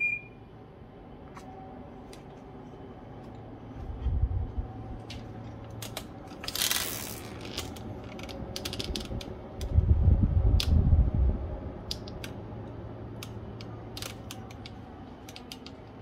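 Samsung AR09FSFKBWT wall-mounted air-conditioner indoor unit running its fan at blower speed 2, a steady low hum and air noise, with its fan motor bearings freshly replaced and the unit fully cleaned. A short beep at the very start, scattered clicks, and loud low thumps about four seconds in and again around ten to eleven seconds in.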